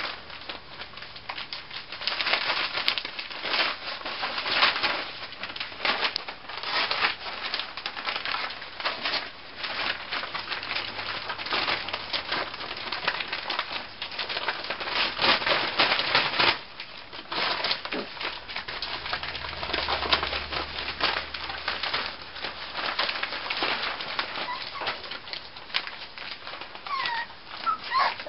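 Newspaper rustling and crackling under six-week-old miniature schnauzer puppies as they scamper and wrestle, in quick irregular bursts. A few short high squeaks near the end.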